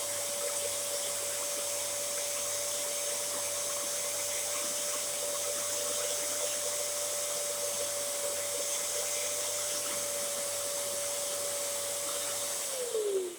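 Dyson DC07 upright vacuum cleaner running with a steady whine and rushing air. Near the end it is switched off and the motor winds down, its whine falling in pitch.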